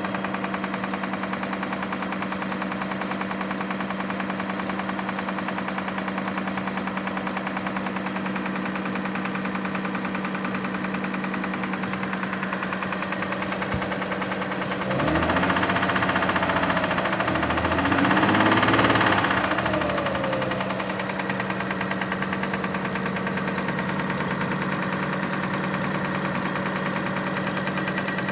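2005 Kia Sorento engine idling with a steady, rhythmic knock, the unexplained engine noise the owner is trying to diagnose. About halfway through the engine is revved briefly, getting louder and rising in pitch, then drops back to idle.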